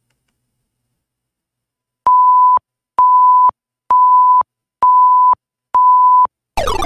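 Countdown timer sound effect: five identical steady beeps about a second apart, ticking off a five-second answer time. Right at the end a falling sound effect begins, marking time up.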